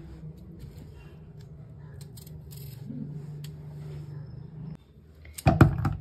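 Vegetable peeler scraping the skin off a cucumber in short strokes, over a low steady hum. Near the end, a few loud knocks as the knife cuts the cucumber over a plastic bowl.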